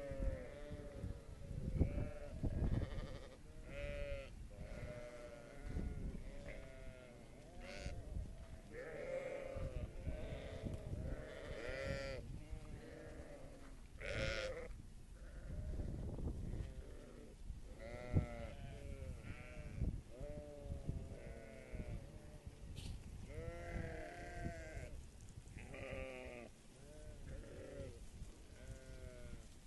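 A flock of livestock bleating: many short calls overlap and follow one another throughout, over a low rumble.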